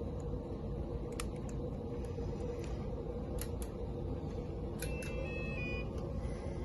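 Steady hum of a lab room with a few faint scattered clicks from handling bench test equipment and its probe leads.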